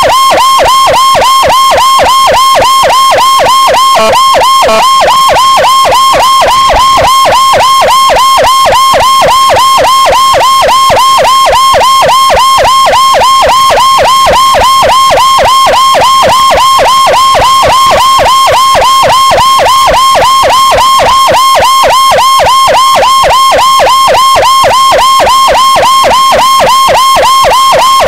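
Motorcycle-mounted electronic escort siren sounding a fast yelp, its pitch sweeping up and down about four times a second, very loud and close.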